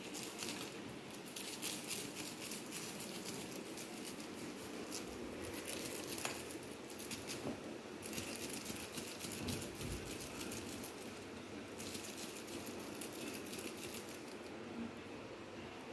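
Kittens' paws and claws scuffling on a tile floor as they play-fight: irregular light scratching and pattering with rustling, no steady rhythm.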